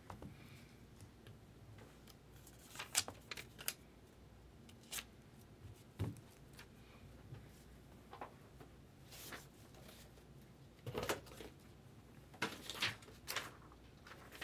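Faint handling noise: scattered short clicks and rustles, a second or two apart, as small objects are handled.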